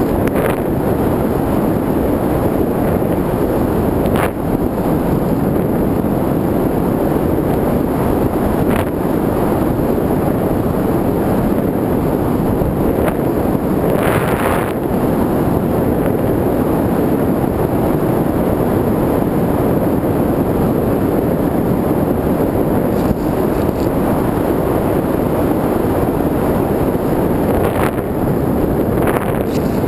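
Airflow rushing over the microphone of a camera mounted on a flying model plane: a loud, steady, even rush of noise, broken by a few brief clicks.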